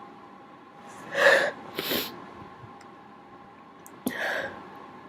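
A person sneezing, set off by a cotton swab tickling the nose: a loud sneeze about a second in with a sharp hissy blast right after it, then another sneeze about four seconds in.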